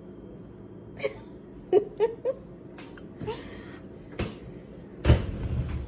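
A toddler's short vocal noises and giggles: four quick little sounds in the first half. Then a light click about four seconds in and a heavier thump near the end.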